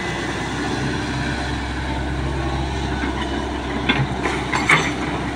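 Hitachi hydraulic excavator's diesel engine running steadily while the machine swings, with a few sharp clanks in the last second and a half.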